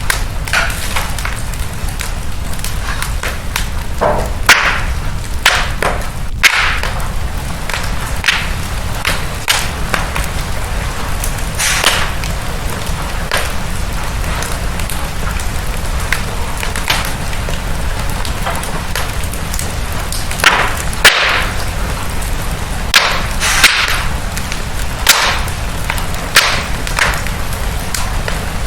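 Wood fire burning in a fireplace: irregular crackles and sharp pops, a handful of them louder, over a steady low rumble of the flames.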